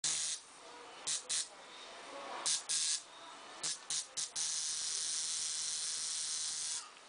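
Coil tattoo machine buzzing in short on-off bursts, then running steadily for a couple of seconds from about halfway through.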